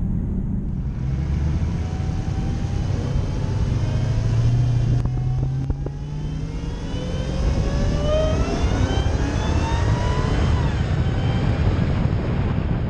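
Dodge Charger Hellcat's supercharged 6.2-litre V8 accelerating, its pitch climbing. It eases off briefly about six seconds in, then climbs again.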